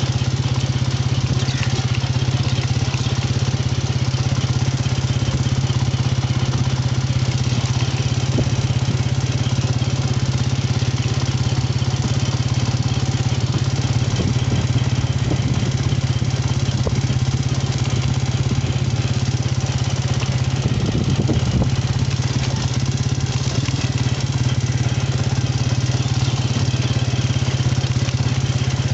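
A small engine running steadily at an even, low pitch, with no revving.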